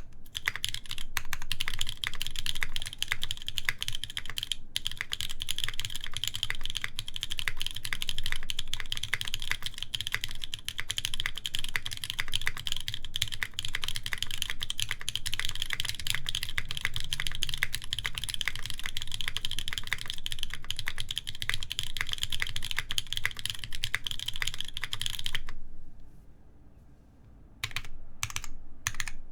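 Fast, continuous typing on a mechanical keyboard with lubed Kailh Cream linear switches in an aluminium plate under GMK keycaps. The typing stops for about two seconds near the end, followed by a few single keystrokes.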